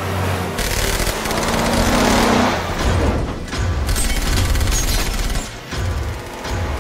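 Rapid gunfire in an action-film chase mix, with engines and a dramatic music score underneath. The shooting is dense from about half a second in, and thins out briefly near the end.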